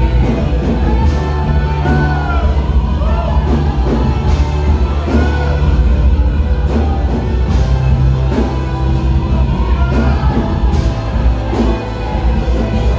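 Live worship band playing a slow, spontaneous worship song: long held bass and keyboard notes under acoustic and electric guitar, with a voice singing over it.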